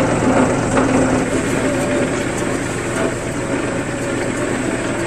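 A machine's engine or motor running steadily, with a constant hum and rattle.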